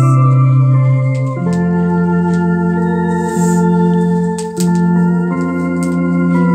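Electronic home organ playing slow, sustained chords. The held notes move to a new chord about a second and a half in, then shift again every second or so.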